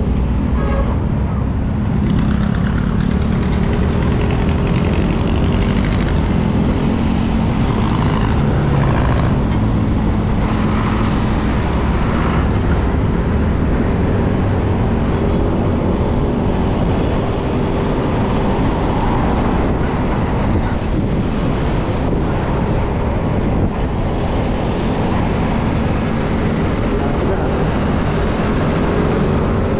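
Yamaha Aerox 155 scooter riding steadily through traffic at about 40 km/h: wind rushing over the microphone, with the engine's even hum underneath and passing traffic around it.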